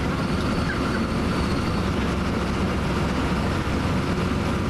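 Interior of a moving city bus: steady low rumble of the engine and road noise.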